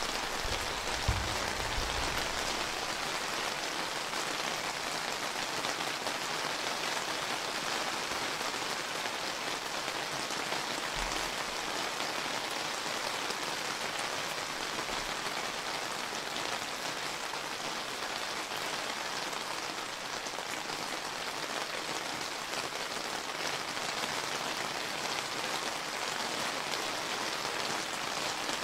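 Steady rain falling, an even hiss of countless drops, with a brief low thump about a second in.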